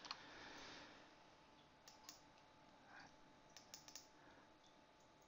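Faint clicks of a computer keyboard and mouse against near silence: a couple at the start, two about two seconds in, and a short cluster near four seconds.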